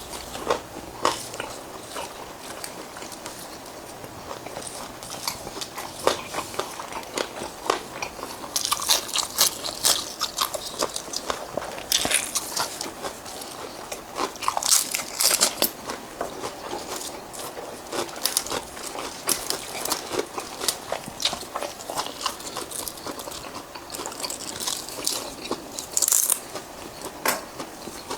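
A person eating close to the microphone: crisp crunching bites and chewing, a dense run of sharp clicks with louder crunchy stretches several times.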